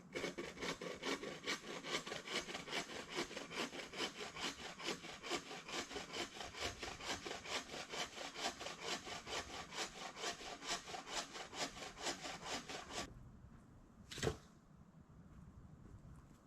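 Hand saw cutting through wood in quick, even back-and-forth strokes, about four or five a second; the sawing stops about thirteen seconds in, and a single sharp knock follows a second later.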